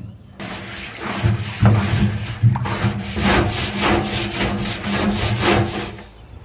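Rhythmic scraping strokes, about three a second through the second half, like a tool working at the end of a fitting.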